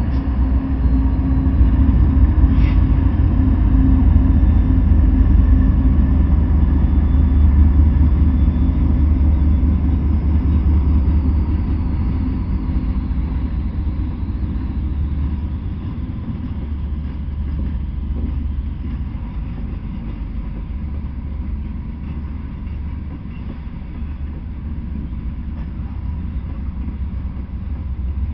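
Freight train passing: Norfolk Southern diesel locomotives go by with a loud, low rumble, followed by loaded coal hopper cars rolling along the rails. The rumble is heaviest for the first dozen seconds while the locomotives pass, then eases to a steadier rolling sound from the cars.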